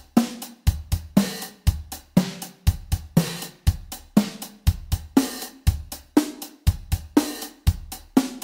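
MDrummer virtual acoustic drum kit playing a steady beat of kick, snare, hi-hat and cymbals, about two hits a second. The snare drum's pitch control is being moved down and up, so the snare's ring is heard at changing pitches.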